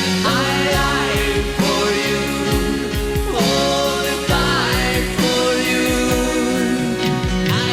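Rock ballad band music with a sung vocal line over a steady drum beat.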